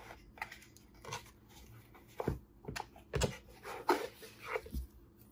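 Hands opening a cardboard gift box and handling the fabric dust bag inside: irregular rustles and scrapes, with a few soft knocks about two, three and five seconds in.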